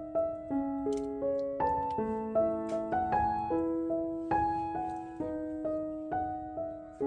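Background piano music: a gentle melody of single notes and chords, struck about twice a second and left to ring and fade.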